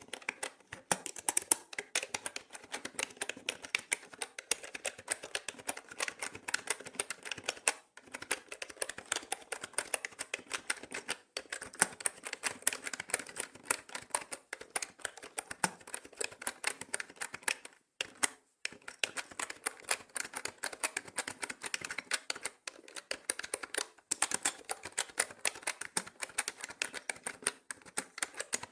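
Rapid continuous typing on a mechanical keyboard, a dense run of key clicks with brief pauses about eight, eleven and eighteen seconds in.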